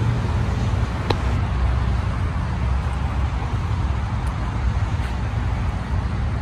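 Steady road traffic noise: a low rumble under an even hiss.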